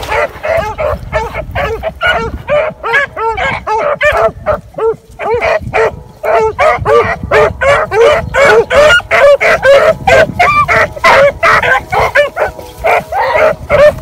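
A pack of beagles baying on the trail of a rabbit: many short, arched calls, several a second and overlapping, with a brief lull about five seconds in.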